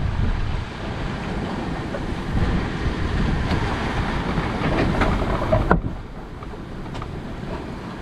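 Wind buffeting the microphone and the sea rushing past the hull of a sailing yacht going fast in rough water: a loud, gusty rush that drops suddenly about six seconds in and runs on quieter.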